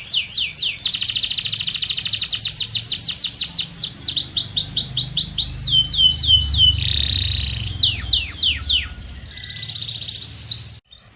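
Domestic canary singing: a long run of phrases, each a quick series of repeated sweeping notes, with a very fast trill about a second in and buzzy rolls later. The song cuts off suddenly near the end.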